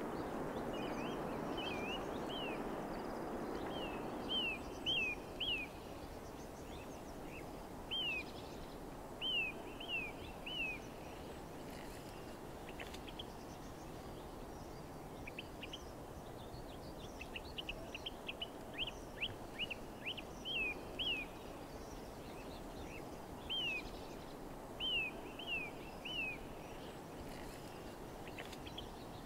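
Small birds chirping over a steady outdoor background hiss: short, quick chirps in clusters of two to four, every few seconds, with a faster run of chirps in the middle.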